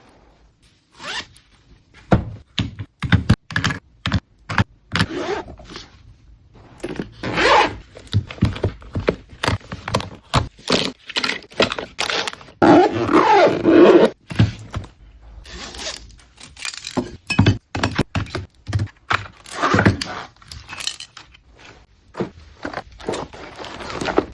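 Items being packed into a suitcase by hand: many quick clicks and knocks as things are picked up and set down, with scraping and rustling of packaging. The longest, loudest scraping stretch comes a little past halfway.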